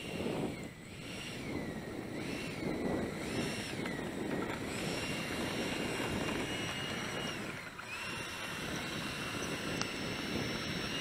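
Electric ducted fan of a Freewing A4 Skyhawk 80 mm RC jet whining, rising and falling in pitch with short throttle blips about once a second, then held at a steady part-throttle pitch, dipping once about three quarters of the way through.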